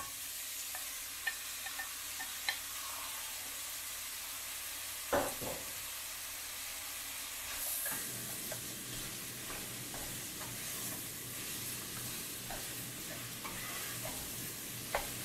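Marinated chicken and sliced onions sizzling as they go into hot oil in a nonstick pan, with a wooden spatula scraping and clicking as they are pushed out of a glass bowl and stirred. A louder knock about five seconds in.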